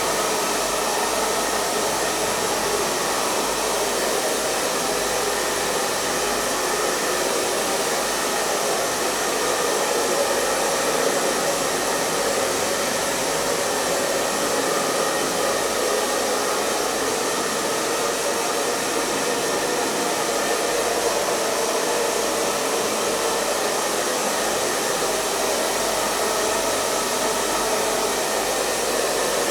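Hair dryer blowing steadily: an even, unbroken rushing of fan and airflow with a faint high whine from the motor.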